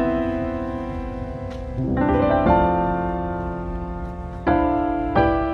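Background piano music: slow chords struck every second or two, each left to ring and fade.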